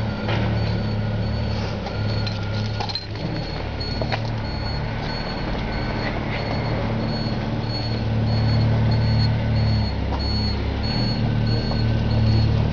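A large engine running steadily at idle: an even low hum that holds throughout, with a few faint clicks over it.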